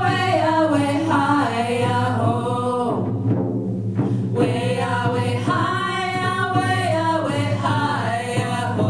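Women's voices singing together over a steady beat on hand-held frame drums. The singing breaks off briefly about three seconds in while the drumming carries on, then the voices come back in.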